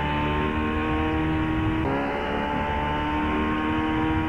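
Tow boat's engine running at high throttle, a steady high note with a brief dip about two seconds in, as it pulls a water-skier up out of the water.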